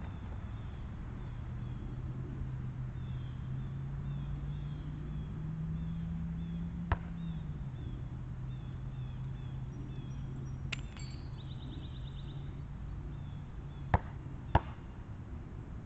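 Basketball bouncing on an asphalt court: one sharp smack about seven seconds in and two more in quick succession near the end, over a steady low hum and faint repeated high chirps.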